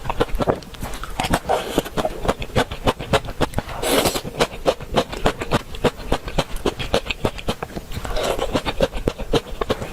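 Close-miked chewing: a person eating with a quick, irregular run of moist clicks and crunches, with a louder noisy burst about four seconds in.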